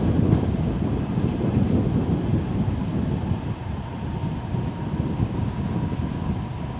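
Suburban passenger train carriage running on the rails, heard from aboard: a dense wheel rumble with a brief high wheel or brake squeal about three seconds in and a faint steady whine later. The rumble eases off gradually, as when the train slows for a stop.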